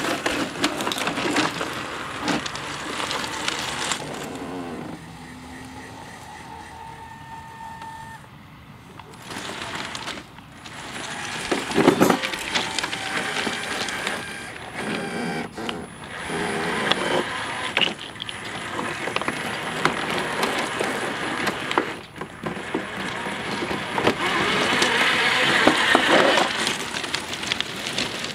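Yarbo tracked yard robot with its S1 attachment driving over an uncut lawn: electric drive motors whining and tracks crackling through the grass, rising and falling as it moves. There is a sharp knock about 12 seconds in, and it is loudest near the end as it comes up close.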